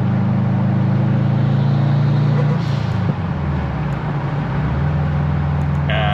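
Subaru flat-four engine running as the car drives, a steady low drone that drops in pitch about three seconds in and climbs again near five seconds, as with a gear change and acceleration.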